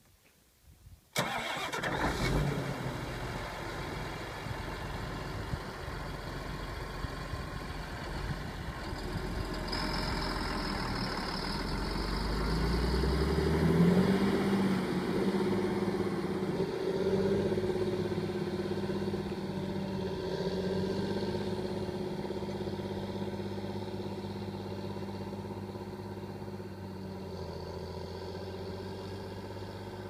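John Deere 8330 tractor's six-cylinder diesel engine working under load as it pulls a disc harrow through dry soil. The sound comes in suddenly about a second in. The engine note rises and is loudest around the middle, then slowly fades as the tractor moves away.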